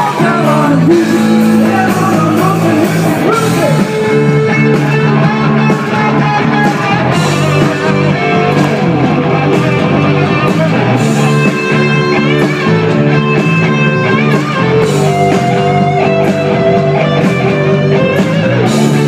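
Live rock band playing loudly, with electric guitar to the fore over a steady drum beat and bass.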